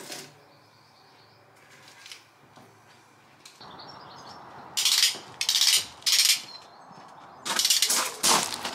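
Footsteps crunching on a gravel path: three separate steps, then steadier walking over the last second or so. A light knock right at the start, as garlic bulbs are set down on a baking tray.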